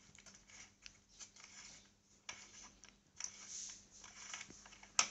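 Faint scattered clicks and scratching of a 10 mm bolt being turned out by hand from a scooter's plastic dash panel, with a sharper click near the end.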